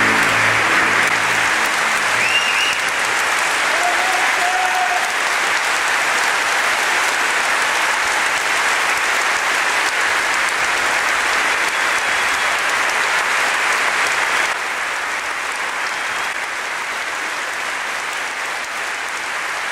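Large audience applauding steadily, with the tail of music dying away in the first couple of seconds. The clapping drops a little in loudness about two-thirds of the way through.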